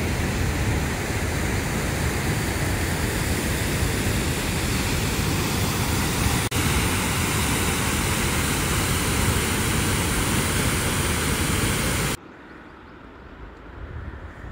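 Fast river of white water pouring over a waterfall: a loud, steady roar, broken for an instant about six seconds in. About twelve seconds in it cuts off abruptly to a much quieter hush.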